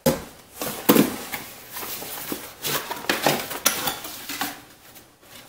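Rummaging in a large cardboard box: irregular knocks and rustles of packaged items being moved around, the sharpest knock about a second in, and a small white cardboard box being lifted out and handled.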